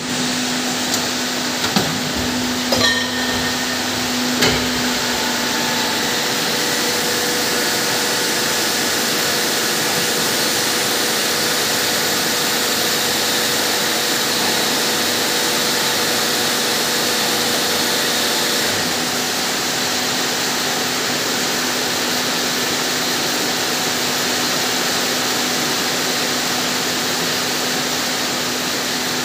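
Plastic injection moulding machine running with a steady loud hum and hiss. A few sharp knocks come in the first few seconds, and the hum's tone shifts slightly about two-thirds of the way through.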